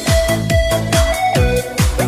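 Electronic dance music with a thumping kick drum about two or three beats a second and a synth melody.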